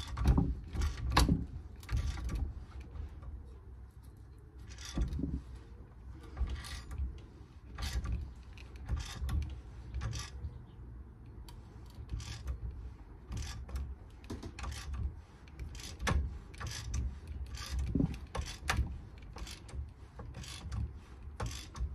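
Hand ratchet clicking in irregular short strokes as it is worked to tighten a clamp down on a CV boot.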